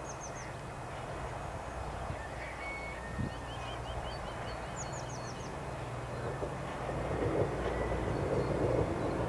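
Class 66 diesel locomotive's two-stroke V12 engine running low in the distance as the train approaches, getting louder over the last couple of seconds. Small birds chirp and trill over it.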